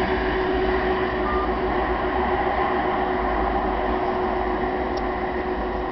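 Steady drone of a car's engine and tyres on the road, heard from inside the cabin while driving at speed.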